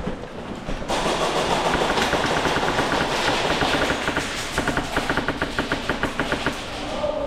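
HPA airsoft rifle with a Polarstar Jack engine firing full auto in long strings of rapid sharp clacks, starting abruptly about a second in: suppressing fire.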